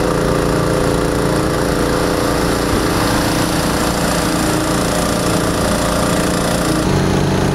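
A small engine running at a steady speed, a constant drone that holds its pitch throughout and shifts slightly near the end.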